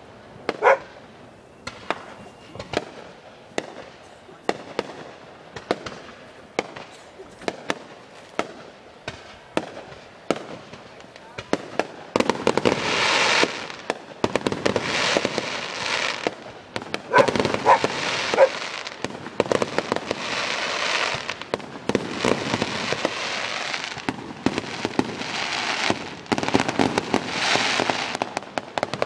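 Aerial fireworks going off: sharp bangs spaced about a second apart, then from about twelve seconds in a dense, continuous crackling barrage with many bangs.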